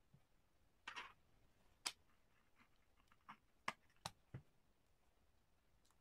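Faint clicks and taps of small hand tools being handled: a short scrape about a second in, then five sharp clicks spread over the next few seconds as metal tweezers are set down on the table and a precision screwdriver is picked up against the phone.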